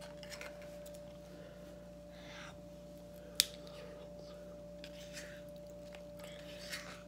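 Soft handling sounds of kitchen containers and food, with one sharp click about three and a half seconds in, over a faint steady hum.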